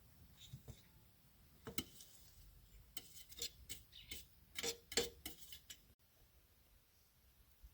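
A run of light clicks and taps over a few seconds, loudest about two-thirds of the way in, then quiet.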